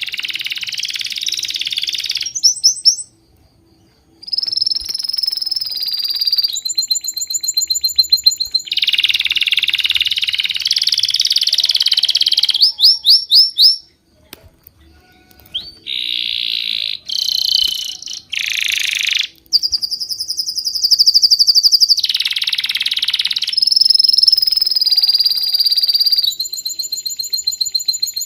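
Songbirds chirping and trilling: fast series of high repeated notes and buzzy trills, one after another, broken by two short abrupt silences, one a little after three seconds and one around fourteen seconds.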